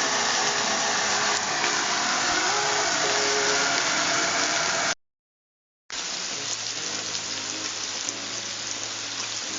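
Steady rain noise with background music playing over it. The sound cuts to total silence for about a second around five seconds in, then the rain and music come back quieter.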